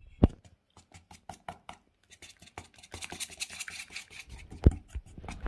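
Wire whisk clicking and scraping against a stainless steel mixing bowl as egg, flour, salt and pepper are beaten into a thick batter. The taps are sparse at first and come quicker after about two seconds, with a louder knock just after the start and another near the end.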